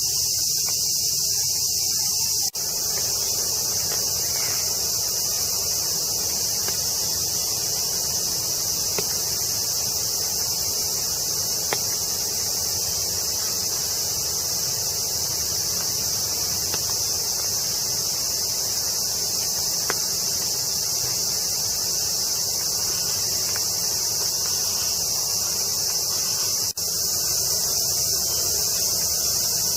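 A steady, high-pitched chorus of insects, unbroken except for two brief dropouts, one near the start and one near the end.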